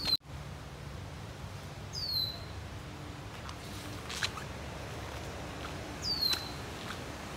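A bird giving a short, high whistled call that slides steeply down in pitch, three times a few seconds apart, over faint outdoor background noise.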